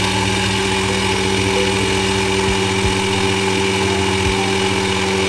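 Electric mixer grinder with a stainless-steel jar running steadily at full speed, grinding a baharat spice blend: a loud motor hum under a whirring hiss.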